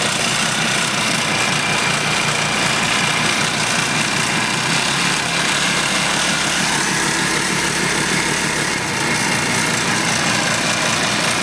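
Lawn mower engine rigged as a canoe outboard motor, running steadily.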